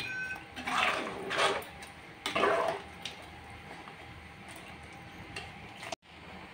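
Steel ladle stirring thin chicken curry in an aluminium pressure cooker, with two swishing, scraping strokes about one and two and a half seconds in, then quieter.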